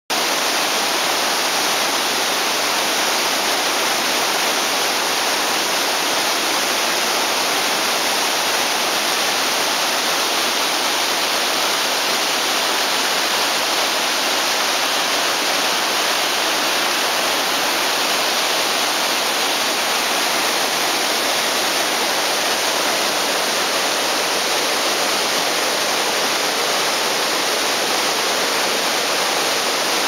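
Waterfall and whitewater rushing over a weir and rock ledges: a loud, steady, unbroken water noise.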